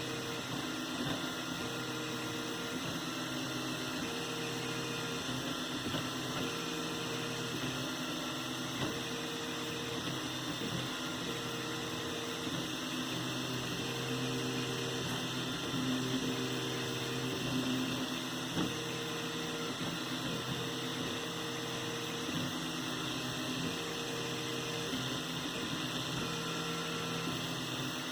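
3D printer running a print: its stepper motors whine in short steady tones, each held for about a second, that stop, start and change pitch as the moves change, over a steady hiss.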